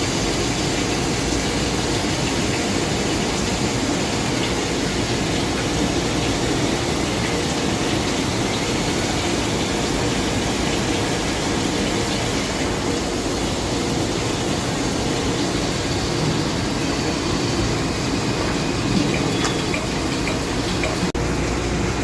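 Nexturn SA38 CNC Swiss-type lathe running a cut, with a steady rush of coolant spraying over the work. The sound changes abruptly near the end.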